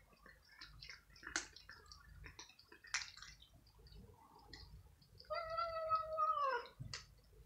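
Cats crunching dry kibble, with scattered sharp clicks, and one long cat meow about five seconds in that drops in pitch as it ends.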